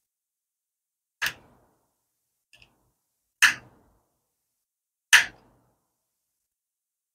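Three sharp clicks about two seconds apart, with one faint tick between the first two, from a thin metal tool prying and cutting through the glue in the seam of a Samsung Galaxy SmartTag's plastic shell.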